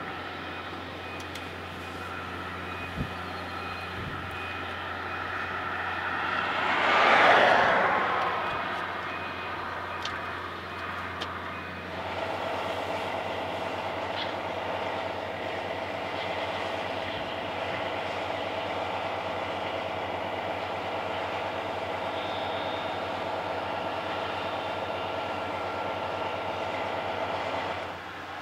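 Steady engine hum with a vehicle passing, which swells to its loudest about seven seconds in and then fades. About twelve seconds in the sound cuts to a different steady drone of running machinery, which stops near the end.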